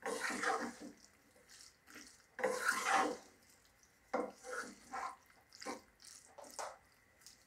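A wooden spatula stirs and scrapes chunks of pineapple in a thick chilli masala around a pot, in irregular scraping strokes. The longest stroke comes about two and a half seconds in, followed by several shorter ones.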